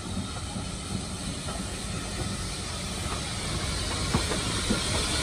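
Steam locomotive No. 110 moving slowly toward the listener, a steady hiss of steam growing louder as it draws near, with a few light knocks near the end.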